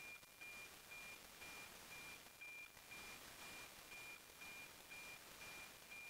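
NOAA weather satellite APT signal received and demodulated by a software-defined radio: a faint high tone pulsing about twice a second over radio hiss, the 'tick-tock' of the satellite sending two image lines a second.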